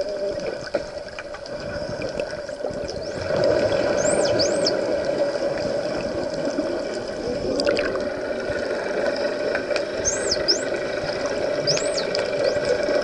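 Indo-Pacific bottlenose dolphins whistling underwater: pairs of short, high, up-and-down arched whistles about four seconds in, again around ten seconds and near the end, with a brief click train a little before eight seconds. Under them runs a steady underwater rush of water noise that gets louder about three seconds in.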